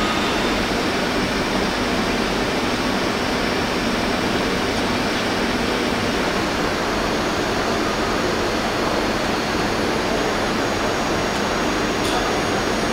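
Wire EDM machine cutting: a steady, unbroken rushing hiss of the dielectric water flushing around the wire at the cut.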